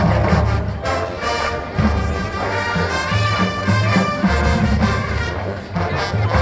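College marching band playing, its brass section carrying the tune over a strong, moving low-brass line.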